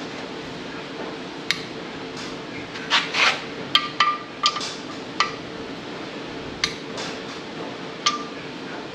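Sharp metallic clicks and clinks of a long torque wrench and socket as the clutch pressure-plate bolts are tightened, about ten in all, several with a brief ringing note, over a steady faint hum.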